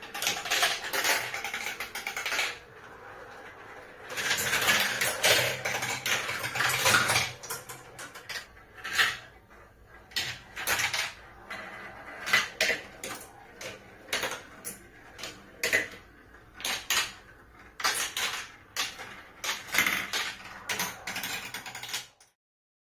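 Many 16 mm marbles rolling and clattering through plastic marble-run tracks and ramps. There is dense rattling in two stretches early on, then many separate clicks and knocks as single marbles drop and strike the track, until the sound cuts off suddenly near the end.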